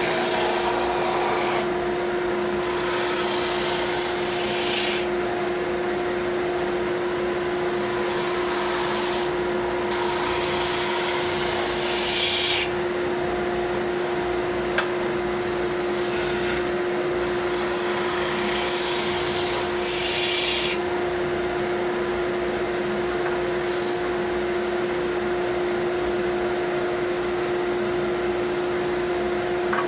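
Power sander running steadily with a constant motor hum, while a wooden bandsaw-box drawer is pressed against the sandpaper in several passes of a few seconds each, each pass adding a harsh rasp of abrasive cutting wood. The sanding takes ridges off the drawer so that it will slide into the box.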